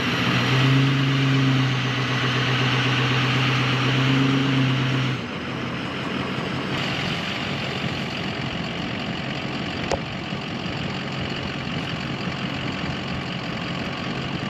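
Ford 6.0 Power Stroke V8 turbodiesel in a Super Duty idling. A steady humming tone with a hiss over it drops about five seconds in to a quieter, even idle. A single sharp click comes about ten seconds in.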